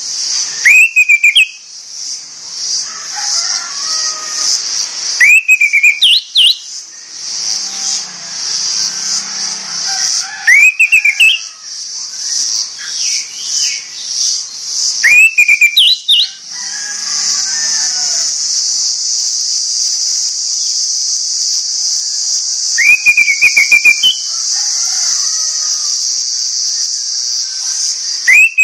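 Orange-headed thrush giving loud, short rising whistles about every five seconds, each sweeping upward and ending in a quick flourish. A steady high-pitched buzz runs underneath, pulsing at first and continuous later.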